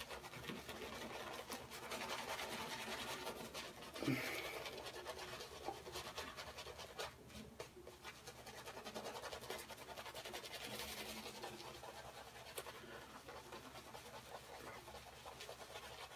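Fine badger-hair shaving brush scrubbing lather over a bearded face: a steady soft scratchy brushing, with a brief louder sound about four seconds in.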